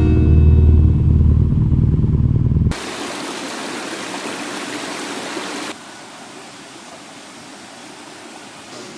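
Stream water rushing over rocks, an even hiss that steps down abruptly to a quieter level partway through. It is preceded by a few seconds of deep low rumble that cuts off suddenly.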